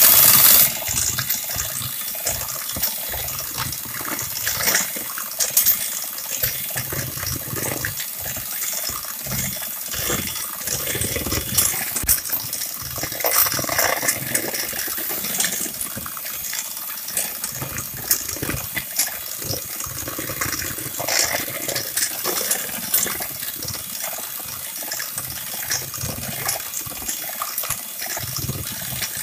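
Electric hand mixer running, its twin beaters whipping thick buttercream in a bowl to beat in a drop of pink food colour. The motor runs steadily under a churning noise, with frequent clicks of the beaters.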